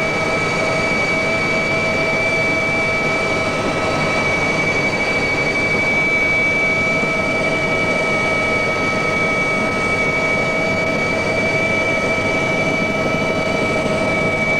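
Mi-2 helicopter's twin turboshaft engines and rotor in steady flight, heard from inside the cabin: a constant rushing noise with a steady high-pitched whine over it.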